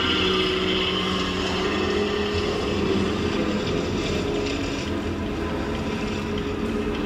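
Steady engine-like drone with a low hum, unchanging in level.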